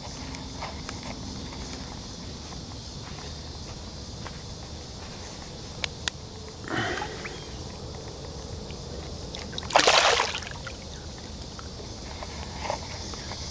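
Water sloshing and splashing as a caught largemouth bass is released from the hand. One smaller splash comes about halfway through and the loudest one, about half a second long, about three-quarters through, over a steady high hiss.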